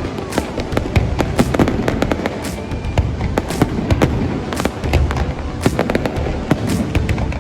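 Aerial fireworks bursting in quick succession: a dense run of sharp bangs and crackles over a continuous low rumble.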